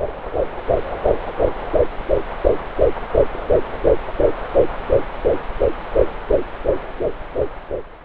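Fetal heartbeat at 10 weeks heard through a BabyBeat handheld fetal Doppler's speaker: rapid, even pulses, about three a second, over a steady hiss. The fast rate is normal for this early stage of pregnancy.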